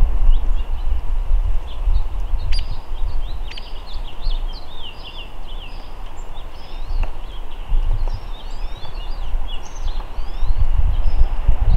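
Small birds chirping over and over in short, high, quick notes, over a loud low rumble that eases in the middle and swells again near the end. A few sharp taps sound among the chirps.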